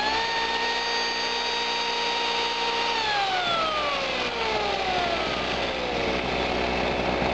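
Electric chainsaw motor running at high speed, then winding down in a long falling whine about three seconds in as the trigger is let go. Under it, the small two-stroke generator that powers the saw keeps running steadily.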